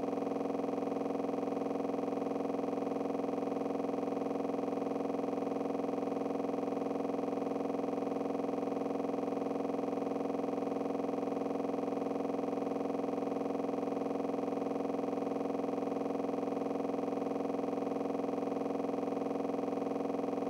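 A steady, unchanging electronic hum made of several held tones in the lower middle range, with a fine even flutter.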